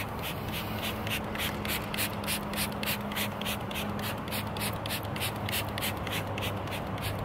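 A Chemical Guys tire applicator pad scrubbing tire dressing into a car tire's sidewall in quick, even back-and-forth strokes, about four a second.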